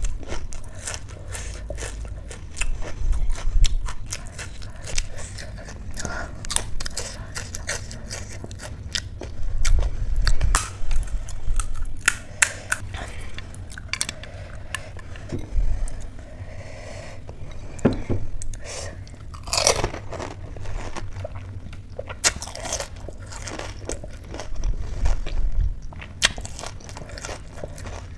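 Close-up eating sounds of pani puri: crisp puri shells crunching between the teeth, then wet chewing, in repeated bites.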